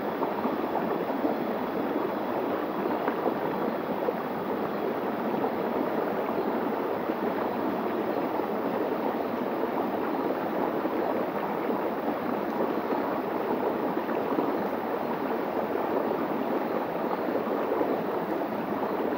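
Shallow stream water running over a rock ledge in a small cascade: a steady, even rushing and gurgling.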